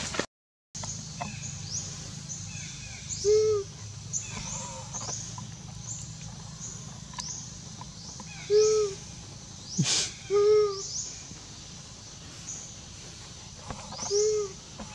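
Baby macaque giving short rising-and-falling coo calls, four of them spaced a few seconds apart, over steady high chirping from birds or insects. A single sharp click sounds just before the third call.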